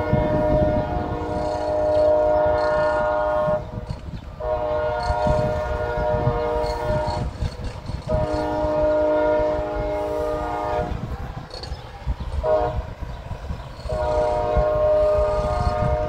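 CSX locomotive's multi-chime air horn sounding the grade-crossing signal: three long blasts, a short toot about three quarters of the way through, then another long blast starting near the end, over a steady low rumble.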